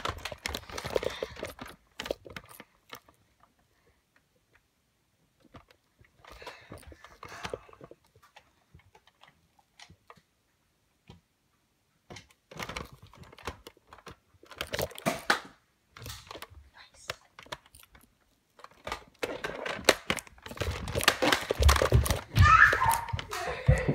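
Clicking and rustling handling noise from a hand-held phone being carried around, in bursts with near-silent gaps between them. It is busiest and loudest in the last few seconds, with a few low thumps.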